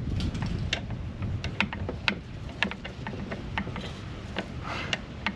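Irregular small clicks and ticks of hand tools and hardware being worked, several a second, over a low steady rumble.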